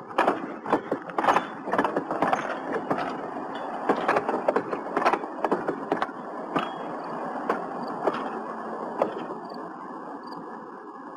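TTC PCC streetcar No. 4000 rolling past on the track: a steady rumble with irregular clicks and knocks from the wheels on the rails, growing a little quieter near the end.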